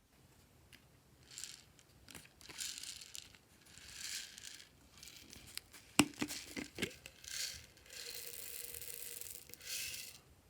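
Crinkly plastic being handled and torn in short bursts, with a loud sharp click about six seconds in and a few smaller clicks after it, then a longer rustling hiss near the end.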